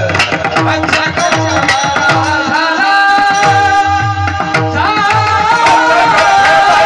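Devotional kirtan singing: a voice carrying a bending melody with long held notes, over a hand drum beating deep bass strokes that slide down in pitch about twice a second, with sharp metallic ticks on top.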